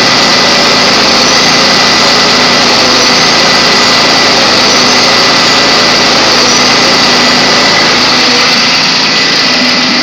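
Cummins ISB 07 6.7-litre straight-six diesel running at raised idle during a parked regeneration of its diesel particulate filter, with a steady high-pitched turbocharger whine over the engine and exhaust noise. It grows slightly fainter near the end.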